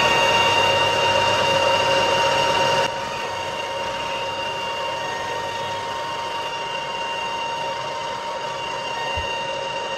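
Colchester Mastiff metal lathe cutting a radius on a hammer face with a radius-turning attachment: the machine runs with a steady whine of several held tones over the noise of the cut. The whole sound drops in level about three seconds in and then holds steady.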